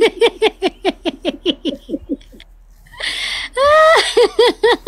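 A person laughing hard in quick, high-pitched pulses, about six a second. Around three seconds in there is a short hissing breath and a rising squeal, then the laughing picks up again.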